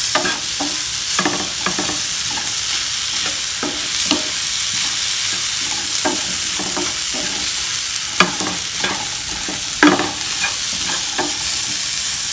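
Grated coconut, onion, tomato and dried red chillies frying in a pan with a steady sizzle, while a wooden spatula stirs them, scraping across the pan in irregular strokes. Two sharper knocks of the spatula come a little after the middle.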